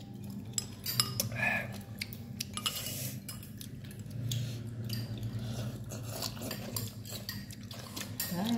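Spoons and chopsticks clinking against ceramic bowls and plates during a meal: many small, scattered clicks and clinks.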